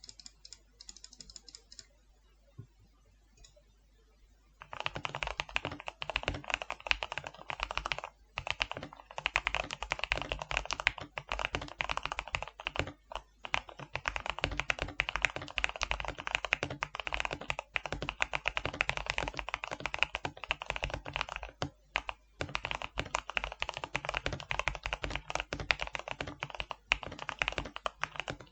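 Typing on a FEKER IK75 mechanical keyboard with hand-lubed Gateron Pro Yellow linear switches on a polycarbonate plate, foam-dampened and tape-modded for a deep thock. A few faint clicks, then from about five seconds in fast, continuous typing with a few brief pauses.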